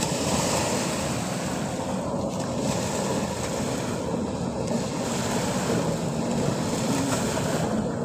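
Shallow waves washing onto a sandy beach: a steady hiss of surf that swells and eases every second or two.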